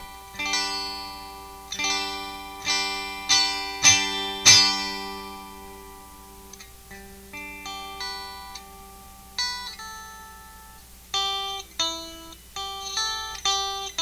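Fanner electric ukulele played clean through a Sound City Master Lead 50 valve guitar head into a Schroeder bass cabinet. A run of strummed chords grows louder, the last one left to ring about four and a half seconds in, then lighter picked notes and short chords.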